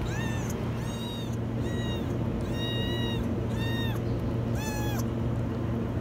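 Kittens meowing: about six high-pitched meows, roughly one a second, each rising then falling in pitch, over a steady low hum.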